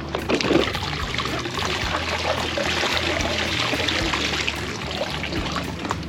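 Water trickling and splashing.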